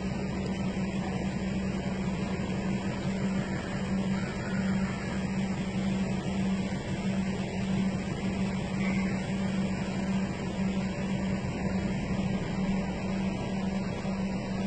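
A steady low machine hum under a constant even noise, with no breaks or sudden sounds.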